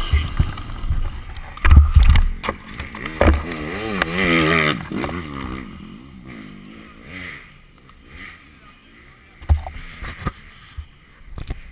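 Dirt bike engine revving unevenly on a steep dirt hill climb, with heavy knocks and thumps about two seconds in and a wavering, rising and falling pitch soon after. From about six seconds in it goes much quieter, with only a few scattered knocks.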